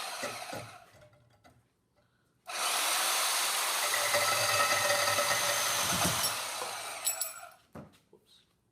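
Power saw cutting a notch: one cut trails off in the first second or so, then after a short pause a second, longer cut of about five seconds runs steadily and winds down near the end.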